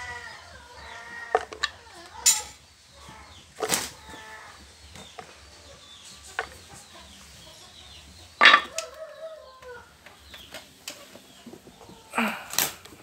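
Handling of a plastic blender jar as cut lime and garlic are put in, with a few sharp knocks and clatters; the loudest knock comes about two-thirds of the way through. Short birdlike calls sound in the background near the start, in the middle and later on.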